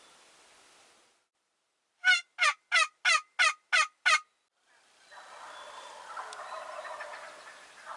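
Turkey calling: seven loud calls in a quick even series, about three a second, each dropping in pitch. About five seconds in, a denser, rougher continuous sound begins.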